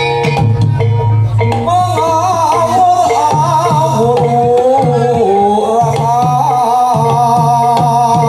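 Live Javanese gamelan music for a Reog performance: a repeating drum pattern with steady chime-like tones, joined about two seconds in by a wavering melody line that runs over the drums.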